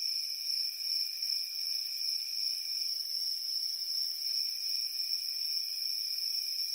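Night insect chorus: a steady, high-pitched trill, joined by a second, lower insect trill that stops for about a second and a half in the middle, then resumes.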